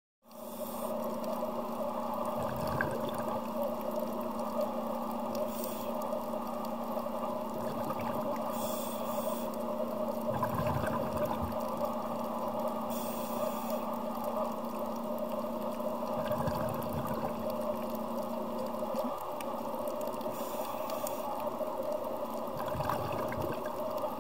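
Shallow-water underwater ambience: a steady hum with a rush of water every few seconds.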